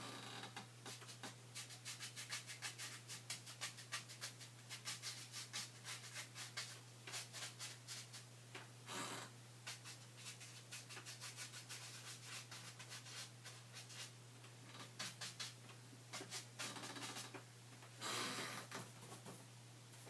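Quick repeated rubbing strokes of a paintbrush working over a painting surface, in runs with short pauses and a couple of longer, louder scrubs near the middle and near the end, over a steady low hum.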